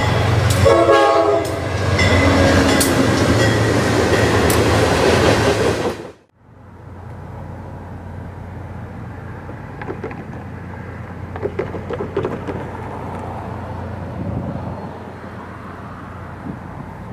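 Diesel locomotive in Amtrak paint passing close at the head of a freight train, its horn sounding for about the first second and a half, then engine noise and wheel clatter with sharp clicks. About six seconds in the sound cuts to a much quieter, distant train: Grand Canyon Railway F40PH diesel locomotives approaching slowly, a low rumble with a few faint clanks.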